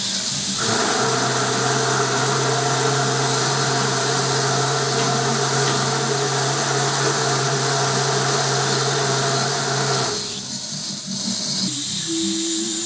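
Electric overhead crane hoist motor running with a steady hum while lowering a hanging load; it starts about half a second in and cuts off suddenly about ten seconds in. A steady hiss runs underneath.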